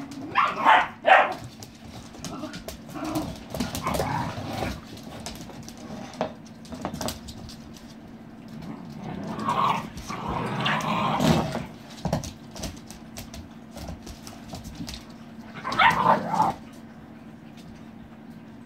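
Puppies playing, barking and yipping in short bursts about a second in, around ten seconds in, and again near sixteen seconds, with many small clicks between, which may be claws on the wooden floor.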